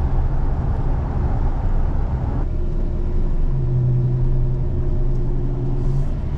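Chevy 1500 pickup driving, heard from inside the cab: a steady low drone of engine and road noise. About two and a half seconds in, the higher hiss falls away, and a steadier low hum holds from about three and a half to six seconds.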